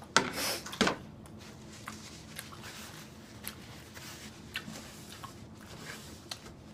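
Close-miked eating sounds: a brief rustling crunch and a sharp knock in the first second, then soft chewing with scattered small mouth clicks.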